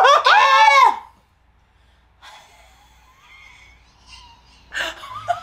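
A woman's drawn-out, wordless whine, rising and falling for about a second, as she reacts to the sourness of a Warheads candy. Then faint breathing, and a gasp near the end.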